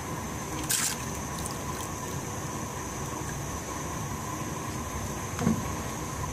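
Steady kitchen hiss and hum. About a second in there is a short rattle as small dry grains are tipped into a metal pot, and near the end a dull knock.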